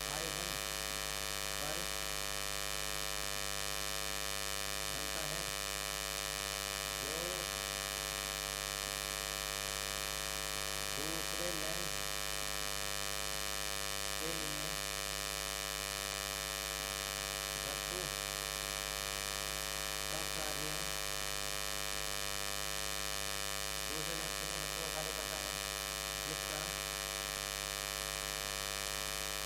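Steady electrical hum and buzz, a dense ladder of even tones running unchanged through the recording: interference noise that the uploader blames on the inverter-powered lights.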